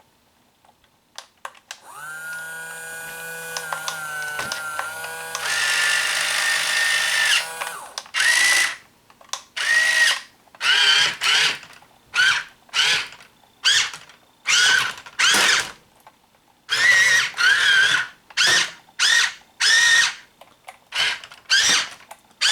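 Small electric gear motors of a Hobby Engine 1/12-scale RC track loader whining as they are driven with the all-or-nothing rocker-switch radio. There is one steady run that gets louder partway through and stops after about six seconds. Then the motors are switched on and off in short bursts, roughly one a second.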